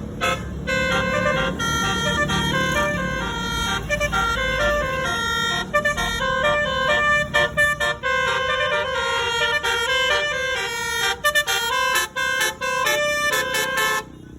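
Telolet basuri multi-tone bus horn playing a melody, stepping from note to note with some notes held and others short, with runs of quick chopped notes in the second half; it stops abruptly just before the end.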